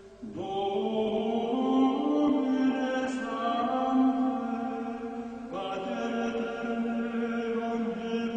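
Background music of sung chant: voices holding long notes that move slowly in pitch, with a new phrase beginning about half a second in and another just past five seconds.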